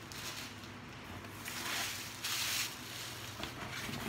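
Plastic packaging bag rustling and crinkling as it is handled, in two short bursts of about half a second each in the middle.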